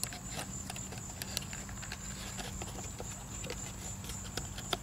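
Faint steady hum and hiss with a thin high whine, broken by scattered light clicks.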